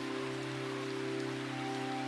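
Slow instrumental hymn music with long held chord tones, mixed over a steady sound of rain falling on a surface. A new, higher note comes in about a second and a half in.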